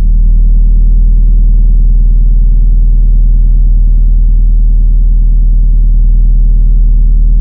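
Loud, steady low-pitched drone with many overtones, strongest in the deep bass and with nothing above about 1 kHz.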